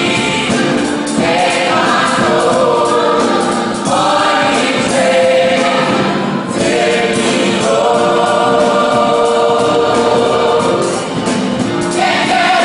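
Mixed gospel choir singing in harmony, accompanied by drums, bass and keyboards.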